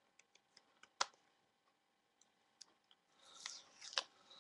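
Faint small clicks, a sharper click about a second in, then a scratchy rustle with another click near the end: fingers handling a new pocket camcorder and peeling protective plastic off it.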